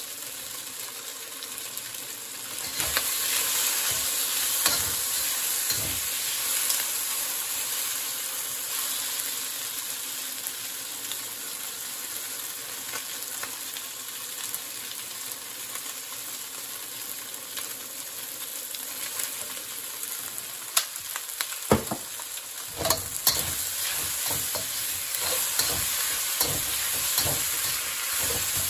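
Diced chicken sizzling in a hot wok, under the steady hiss of a handheld butane torch played over the meat for a smoky wok flavour. From about three quarters of the way in, a metal spatula scrapes and clacks against the wok as the chicken is stirred.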